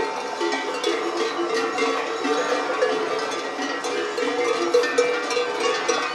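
Many bells on a herd of horses clanking unevenly at several pitches as the animals walk past, with hooves clopping on the asphalt.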